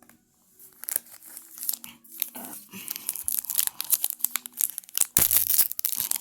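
A trading-card pack wrapper being torn open and crinkled: dense crackling that starts about a second in and grows louder toward the end.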